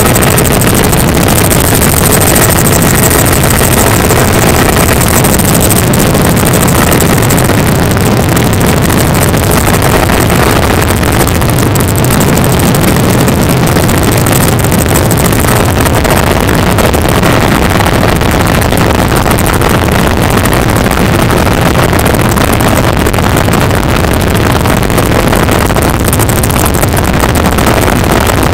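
Helicopter noise heard from on board: a loud, steady rush of rotor and engine noise with no break.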